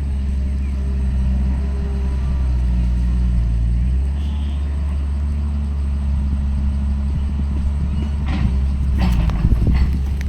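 Heavy earthmoving machine's diesel engine running steadily at a low, even note, with a few sharp knocks about eight to ten seconds in.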